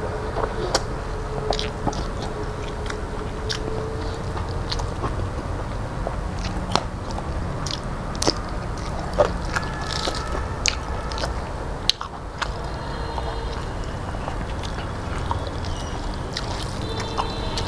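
A person chewing and biting food with wet mouth clicks and smacks, eating rice, fried vegetables and green chillies by hand. The clicks come irregularly, several a second at times, over a steady low hum.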